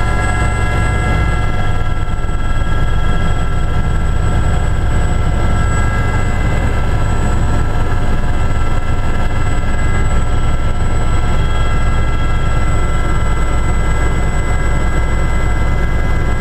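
Aérospatiale Gazelle helicopter in flight heard from inside the cabin: a steady low rotor and engine drone with a constant high whine over it, unchanging throughout.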